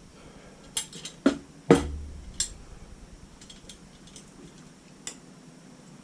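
Wire wheel spokes clinking and knocking against the metal hub as they are worked into place: a few sharp clinks in the first two and a half seconds, the loudest two close together, then one more near the end.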